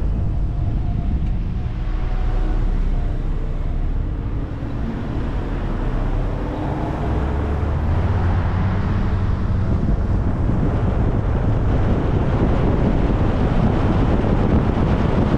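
Car on the move: steady tyre and road noise with wind buffeting the microphone, louder and fuller in the second half as the car gathers speed after turning at an intersection.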